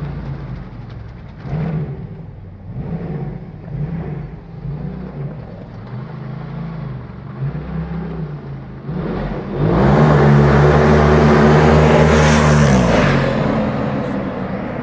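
Stripped-down Polaris RZR Turbo side-by-side engine revving up and down in repeated short bursts as it is driven around, then running hard for about three seconds with a loud rush before easing off near the end.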